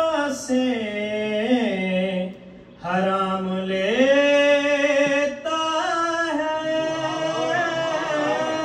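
A man chanting unaccompanied in long, held melodic phrases, with a short breath pause about two and a half seconds in.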